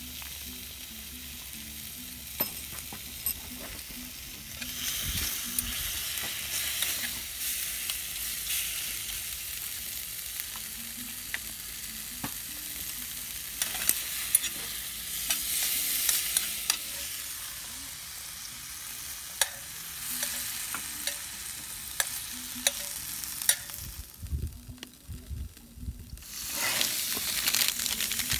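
Slices of meat sizzling in a cast iron skillet over a small wood fire, with sharp clicks of metal chopsticks against the pan as they are turned. The sizzle swells louder near the end as thick slabs of fried tofu go into the hot fat.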